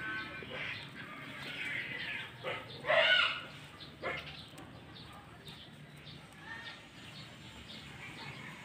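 Backyard fowl calling: one loud squawk about three seconds in, a shorter call about a second later, and faint chirps around them.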